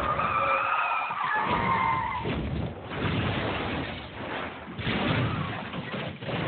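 Vehicle tyres screeching in a skid for about two seconds, the pitch sinking slightly, followed by rough, noisy vehicle sound that rises and falls.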